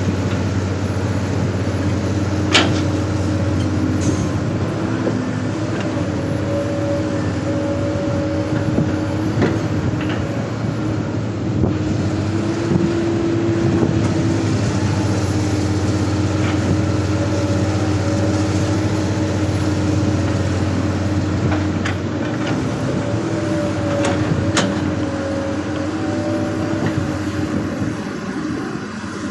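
Excavator's diesel engine running steadily under working load, its drone shifting slightly in pitch, with a few sharp knocks, the clearest about two and a half seconds in and again near the end.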